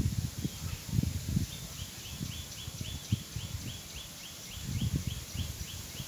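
Wind gusting across the microphone in uneven low buffets as it sweeps over a rice paddy. From about a second and a half in, a high chirp repeats steadily, about three to four times a second.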